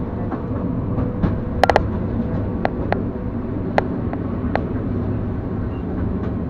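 EP2D electric train running on the track: a steady rumble broken by sharp knocks, a quick run of three about a second and a half in, then single ones every second or so.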